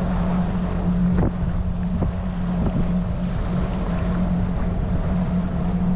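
Suzuki four-stroke outboard running at a steady cruising speed as the skiff moves across the water, a steady hum with wind rushing over the microphone.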